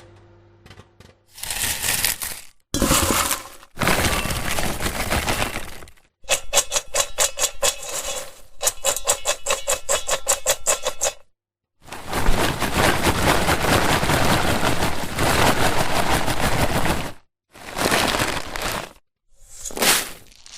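Popcorn popping: a run of separate short clips of dense cracking and popping, each a few seconds long, divided by brief silent gaps. Two of them, in the middle, are fast, even strings of pops.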